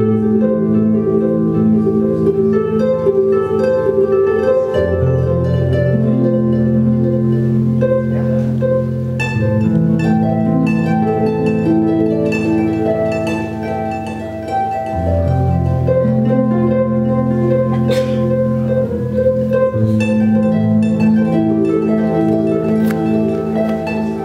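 Lyon and Healy concert grand pedal harp played solo through effects: a stream of plucked notes over looped low notes that hold for several seconds and shift to a new pitch about every five seconds.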